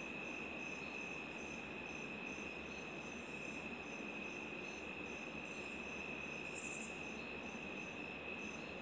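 Crickets chirping: a steady high trill with a fainter pulsing chirp above it, and a short louder buzz near seven seconds in.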